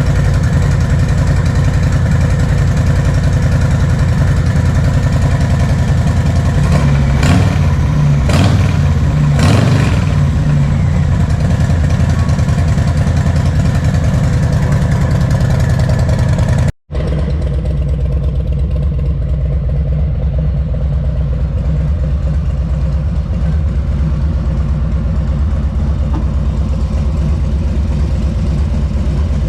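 Harley-Davidson Milwaukee-Eight 114 V-twin idling through aftermarket Shark Road slip-on mufflers, with three quick throttle blips about 7 to 10 seconds in. The sound cuts out for an instant partway through, then the idle carries on with a duller tone.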